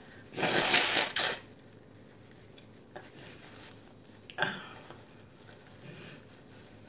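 A woman blowing her nose into a paper napkin: one long blow of about a second, then a shorter one about three seconds later. Her nose is running from the heat of the hot food.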